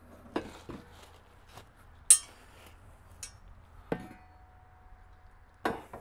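Scattered metal clanks and clinks as a metal push handle is handled and fitted onto a sawmill carriage's uprights. The sharpest clink comes about two seconds in, and a knock about four seconds in leaves a short ringing tone.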